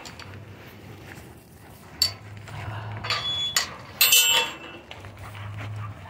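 Metal clanks and rattles of a chain-link gate and its latch being worked and swung: several sharp clinks with brief ringing, the loudest about four seconds in.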